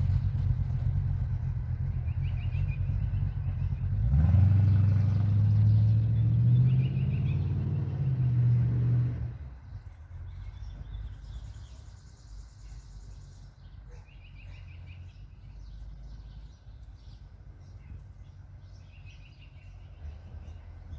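Small-block Chevy V8 of a 1986 Chevrolet square-body pickup running through a simple temporary exhaust. About four seconds in the engine note rises under throttle for about five seconds, then the sound drops off sharply, leaving a quieter low rumble.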